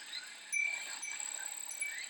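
Glass fūrin wind chime ringing, struck about half a second in, over a steady high insect drone of cicadas, with short rising chirps throughout.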